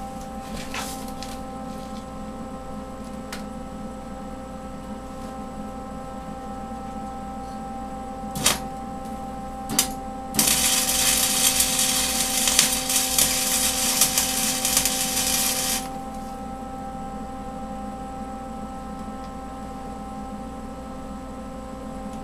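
Electric arc welding: one tack weld on a steel bracket and tank, a loud steady crackle of about five seconds starting a little before halfway. Two short sharp ticks come just before it, and a steady electrical hum runs underneath throughout.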